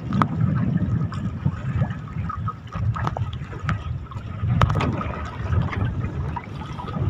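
Wind buffeting the microphone over water lapping and splashing against a small wooden outrigger boat's hull, with a few light knocks.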